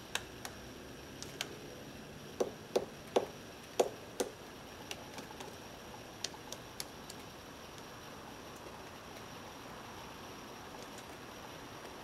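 Pileated woodpecker chiselling into a tree trunk with its bill: irregular, sharp knocks, with a run of five loud strokes a few seconds in and fainter taps after, stopping about halfway through.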